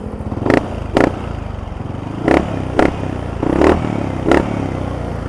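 Yamaha NMAX V1 scooter's single-cylinder engine idling through an Apido power pipe aftermarket exhaust, blipped six times in quick pairs of short revs.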